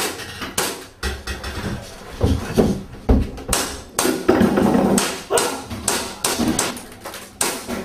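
Airsoft pistol shots: a string of sharp cracks, about two a second and irregularly spaced, in a small echoing stairwell.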